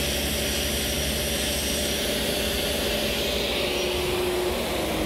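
Portable table saw running with a steady motor whine while a panel-cutter sled carries a sheet of melamine through the blade, making a square crosscut.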